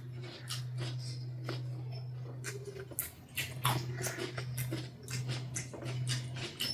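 Close-miked eating sounds: wet chewing, lip smacks and mouth clicks in an irregular run, over a steady low hum.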